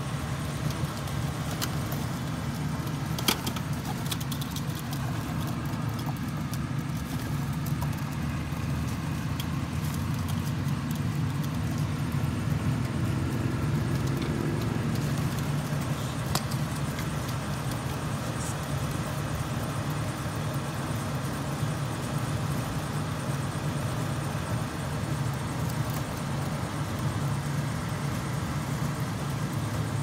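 Rooftop air-conditioning unit running with a steady low mechanical hum, broken by a couple of sharp ticks.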